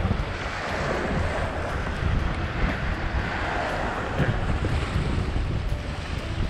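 Wind rumbling on the microphone over choppy water sloshing and splashing against a concrete wharf edge.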